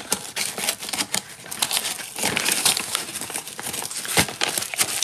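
Crinkling and rustling of a package of allulose sweetener being handled as a quarter cup is scooped out, with irregular small clicks and scrapes.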